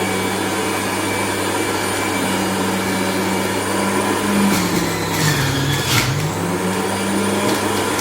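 Moulinex electric juicer's motor running with a steady hum. About five seconds in, its pitch sags and wobbles as it bogs down under the load of produce being pushed through, with a few sharp knocks, then it picks back up to speed.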